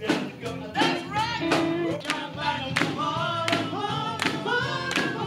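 Live funk band playing, with a singer's voice over it and drum hits keeping a steady beat.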